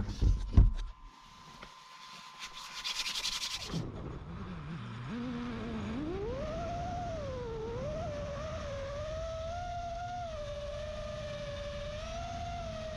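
FPV quadcopter's motors whining. The pitch sweeps up about four seconds in, then rises and dips with the throttle. A couple of knocks come in the first second.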